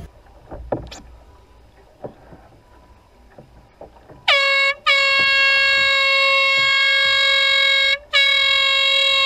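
Handheld canned air horn blasting one steady high-pitched tone. A short blast comes about four seconds in, then a long blast of about three seconds, a brief break, and another long blast near the end. Before the horn there are only a few faint knocks.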